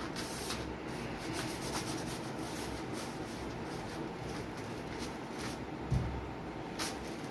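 A stack of paper kites with bamboo spars rustling and rubbing as it is handled and lifted, with a single dull bump about six seconds in.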